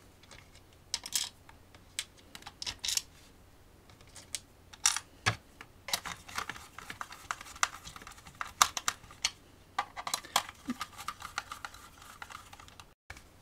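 Small screwdriver driving screws into a plastic handheld tool case, with irregular light clicks and taps as the screwdriver, screws and plastic housing are handled.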